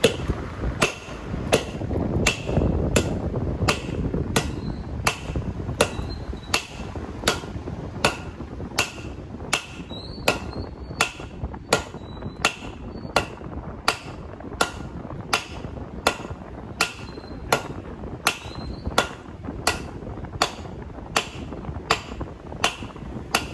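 Hand hammer striking red-hot gun-barrel steel on a railway-rail anvil, drawing it out flat in steady blows about three every two seconds, some with a short metallic ring.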